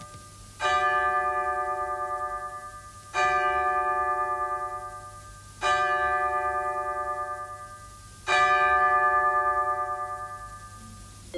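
A deep bell struck four times, about two and a half seconds apart, each stroke ringing out and slowly fading with a wavering shimmer.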